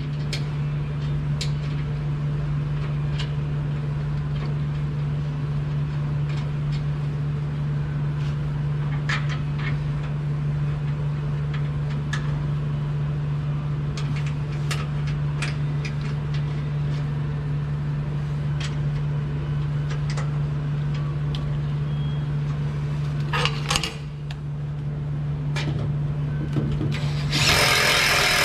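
A steady low engine-like hum with scattered sharp metal clicks and taps from hand tools, as nylock nuts and bolts on the new garbage-truck packer rollers are worked. About a second before the end, a loud power tool starts up.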